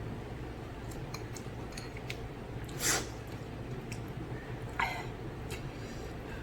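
A person eating spicy noodles: quiet chewing with small wet mouth clicks over a steady low hum, and two short, louder breathy sounds about three and five seconds in.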